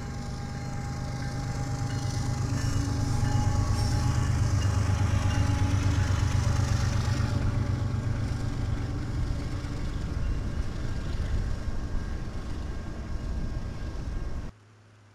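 Several BNSF diesel-electric locomotives running in a string as they pass, their engines making a steady low drone with rail noise. It swells to its loudest a few seconds in, then eases off, and cuts off suddenly near the end.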